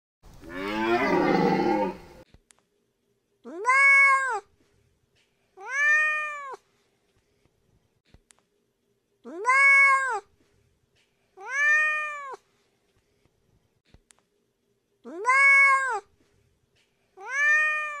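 A deer stag's drawn-out call for the first two seconds, then a tabby cat meowing six times in three pairs a few seconds apart, each meow rising and then falling in pitch.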